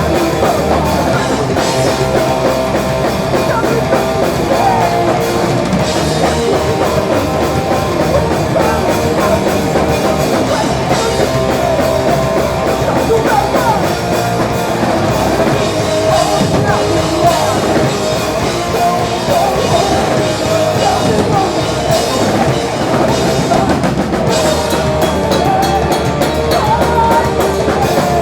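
A punk rock band playing live at full volume: distorted electric guitars, bass and a drum kit, continuous with no break.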